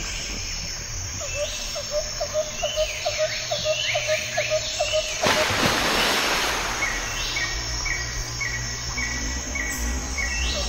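Birds and insects chirping: repeated short calls and descending whistles, with a run of lower, evenly spaced chirps in the first half. About halfway through, a steady rushing hiss comes in over them for several seconds.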